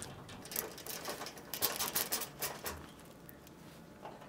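Hand driver turning sheet-metal screws into a dryer's front bulkhead: a run of small, irregular clicks and scratchy ticks that thin out near the end.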